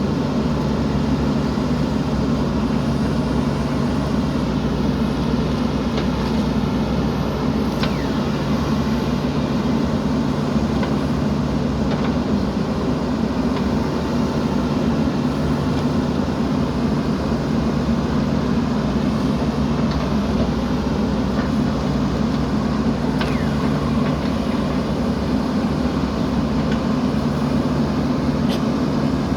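Diesel engine of a JCB 3DX backhoe loader running at a steady speed, with a few faint clicks here and there.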